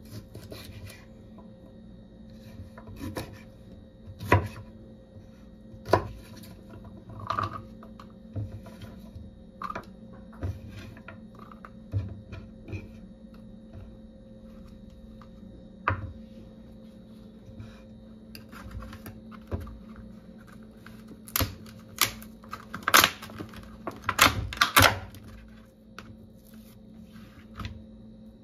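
Chef's knife cutting green beans on a plastic cutting board: separate sharp knocks of the blade on the board, one every second or two. A few louder knocks and clatters come close together about three-quarters of the way through as the beans and containers are handled, over a steady low hum.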